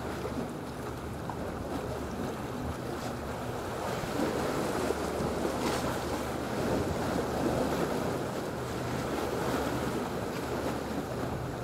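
Sea waves washing and wind buffeting the microphone, over a steady low drone of a boat engine.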